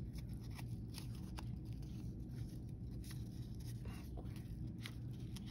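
Faint, scattered crackles of a paper strip being creased forwards and backwards into an accordion fan fold, over a steady low hum.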